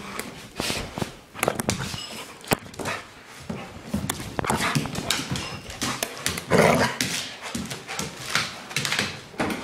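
Labrador puppy barking in a play attack, in short irregular bursts, with scuffling and sharp knocks of close contact throughout.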